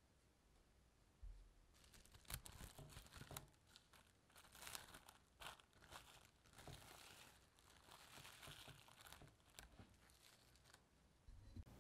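Plastic cling wrap crinkling as it is pulled and pressed over a glass bowl of bread dough: faint, irregular crackles that start about two seconds in and stop shortly before the end.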